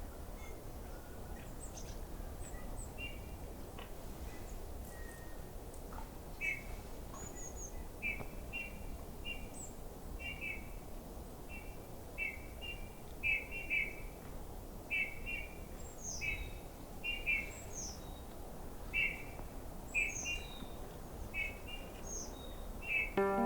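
Small songbirds calling in winter woodland: short, repeated two-part calls about once a second, starting about a quarter of the way in, with thin high notes in between, over a low steady outdoor rumble.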